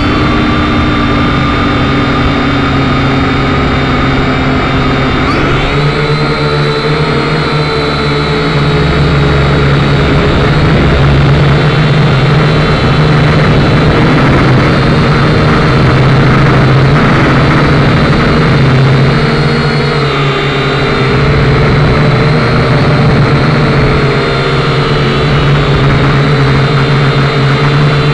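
Motor and propeller of a model aircraft, heard from a camera on board: a loud, steady whine that rises in pitch about five seconds in and then holds high, wavering slightly.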